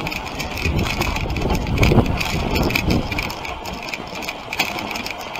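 Dog sled moving over snow: the runners scraping and hissing along the trail, with frequent small clicks and rattles from the sled as it rides the bumps.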